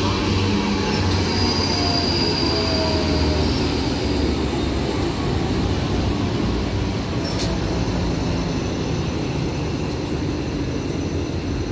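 Two coupled Class 334 electric multiple units running past the platform: a loud, steady rumble of wheels on rail, with thin high squealing tones in the first few seconds and a brief sharp squeal about seven seconds in. The sound eases slightly near the end.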